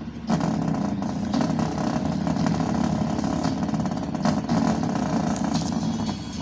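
Small 3-watt speaker drivers from a Jam Thrill speaker, overdriven by an amplifier with bass-heavy audio, buzzing and distorting hard. The sound cuts out briefly just after the start and drops near the end, as the amp keeps shutting itself off.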